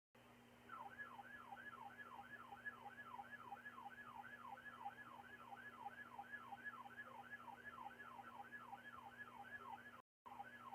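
Faint electronic siren in a fast yelp, its pitch sweeping up and down about three to four times a second over a steady low hum. The sound is thin and narrow, as if heard through a radio or phone line.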